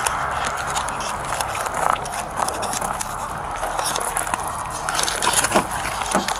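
Handling noise from a body-worn police camera rubbing against the wearer's clothing as she moves, with irregular clicks and scrapes over a steady hiss.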